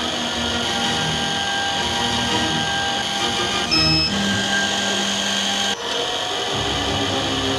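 High-speed electric drill motor (17,000 rpm) of a computerized eyeglass-lens drilling machine running with a steady high whine while it drills holes in the lenses. A short high tone sounds about four seconds in, and the sound changes abruptly just before six seconds.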